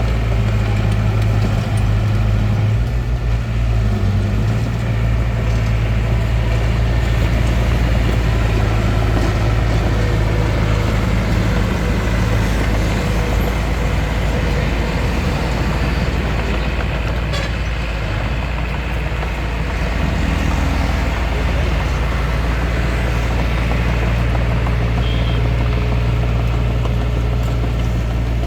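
Bulldozer's diesel engine running steadily at work, its low hum changing note briefly past the middle before settling back.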